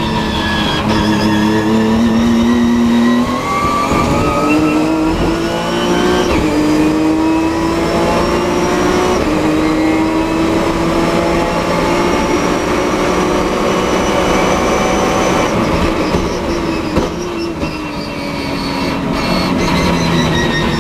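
Nissan 370Z race car's 3.7-litre V6 at full throttle, heard from inside the car. It climbs in pitch through the gears, with upshifts about every three seconds, then holds a long pull. Near the end it drops away under braking and downshifts, and picks up again as the car accelerates out of the corner.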